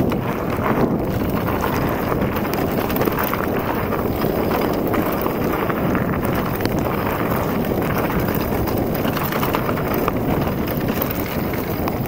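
Wind buffeting the action camera's microphone at speed on a mountain-bike descent, mixed with the tyres rolling over the dirt trail and the bike rattling over bumps.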